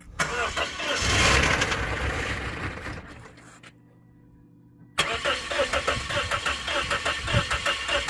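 2007 Toyota Corolla's four-cylinder engine starting, then fading out about three and a half seconds in. About a second later it fires again abruptly and runs with a rapid, even knocking: extreme rod knock from a failing engine.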